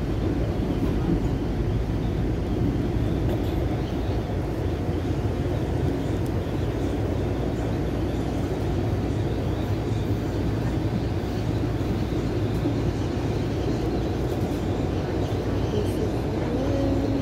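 Steady low rumble and road noise of a moving vehicle, heard from inside it.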